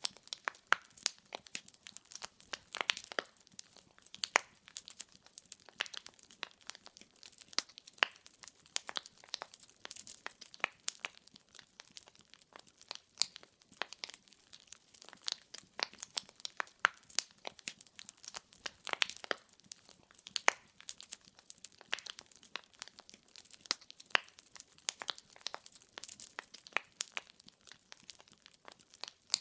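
Wood fire burning in a fireplace, logs crackling and popping with many irregular sharp snaps over a faint hiss.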